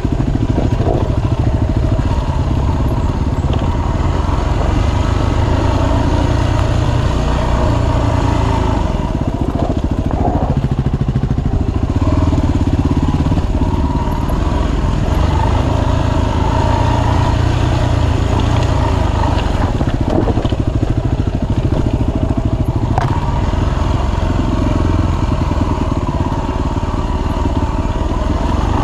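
Dirt bike engine running under way on a trail, its pitch shifting up and down as the throttle is worked, with a few sharp knocks along the way.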